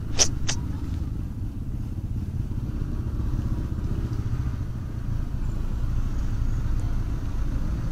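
Honda Airblade 150 scooter's single-cylinder engine running at low speed in stop-and-go traffic, a steady low drone with road noise. Two short sharp clicks right at the start.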